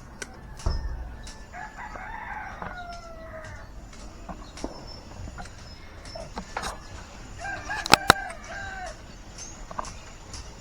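A rooster crowing twice, about two seconds in and again about eight seconds in, amid scattered knocks and taps. Two sharp clicks just before the second crow are the loudest sounds.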